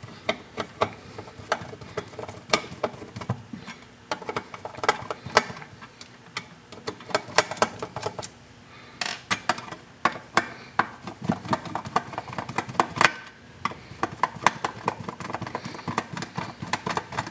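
Screwdriver working screws out of the sheet-metal chassis of a variable frequency drive: a run of irregular light metal clicks and clinks.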